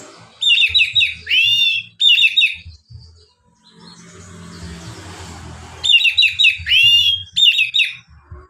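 Oriental magpie-robin singing loud, clear song: a short phrase of quick, sharp whistled notes with one swooping note in the middle, sung twice with about three seconds' pause between.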